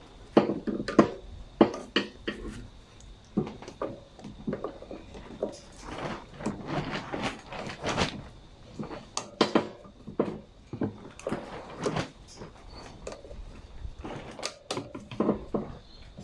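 Irregular clicks, taps and scrapes of long-nose pliers working a hose clamp and the fuel hose off a lawnmower carburetor, with a few sharper knocks about a second in, near the middle and near the end.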